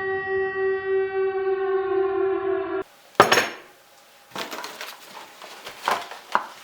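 A loud, steady siren-like horn tone that sags slightly in pitch and then cuts off abruptly, followed by a sharp crash and a few lighter clattering knocks and clinks.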